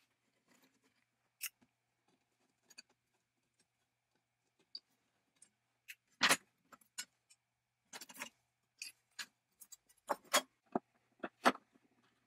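Sharp metallic clicks and knocks of hand tools and loose parts against an early-1900s James Swan beam drill's cast-iron frame and gear rack as it is taken apart by hand. The taps are few and faint at first, then come quicker and louder about halfway through.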